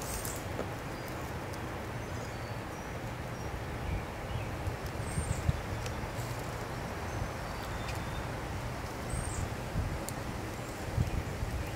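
Outdoor ambience: a steady hiss with small songbirds chirping now and then in short high notes, and a few soft low thumps.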